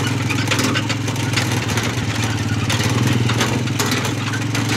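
A small vehicle engine running steadily while driving slowly over a rough rocky dirt road, with irregular clatters and rattles from the body jolting on the stones.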